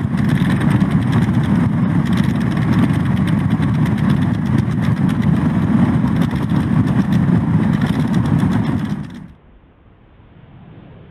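Loud, steady vehicle engine noise with wind on the microphone. It cuts off abruptly about nine seconds in, leaving a much quieter, muffled steady rumble.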